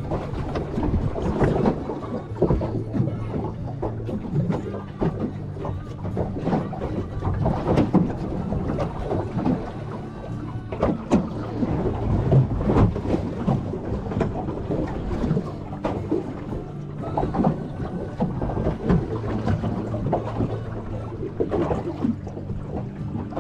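Water slapping and knocking against the hull of a small fishing boat, with wind, over a steady low hum.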